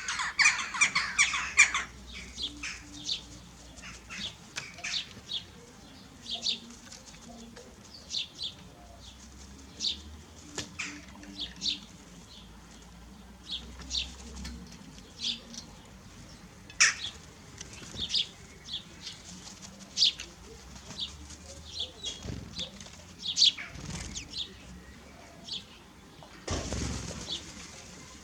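Small birds flapping their wings in a quick flurry at the start, then chirping in short, scattered high calls, with a brief rustle near the end.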